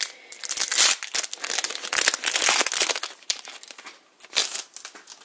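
Magic: The Gathering booster pack wrapper crinkling as it is torn open and handled: a dense, crackly rustle for about three seconds, then a short rustle near the end.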